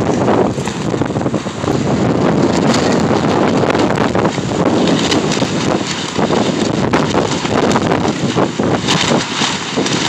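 Strong, gusting wind buffeting the microphone, with the loose plastic sheeting of a wind-torn cattle panel hoophouse flapping in the gusts.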